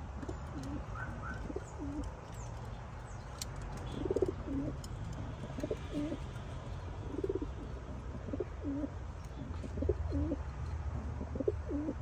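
Young racing pigeon cocks cooing repeatedly, short low coos that dip and rise in pitch, coming about once a second or so.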